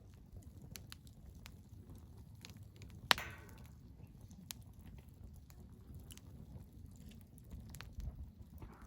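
Wood fire crackling with scattered small snaps over a low rumble, and one loud, sharp pop about three seconds in.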